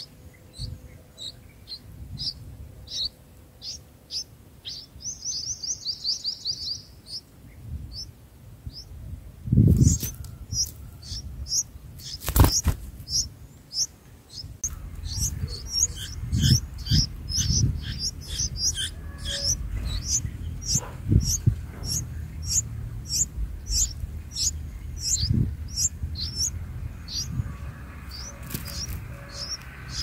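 Bulbul nestlings begging with short, high chirps about two a second, with a rapid run of calls about six seconds in, then denser and more insistent chirping while the parent feeds them. Two loud thumps about ten and twelve seconds in.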